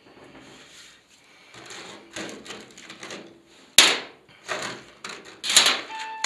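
Small metal hardware (bolts, sealing washers and plugs) being handled and set down on a sheet-metal worktop: irregular rustling and clinking, with two sharp clacks about four and five and a half seconds in. Music comes in at the very end.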